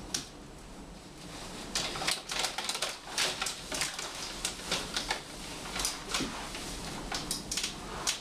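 Brown paper bag crinkling and rustling as a head is pushed into it, in quick irregular crackles that start about two seconds in.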